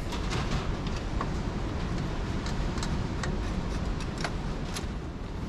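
Low, steady wind rumble with scattered light clicks and taps.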